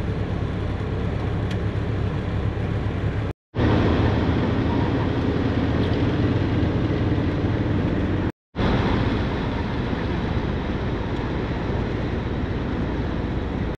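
Van driving along a highway: steady engine and tyre noise, cutting out to silence twice for a moment, about three and a half and eight and a half seconds in.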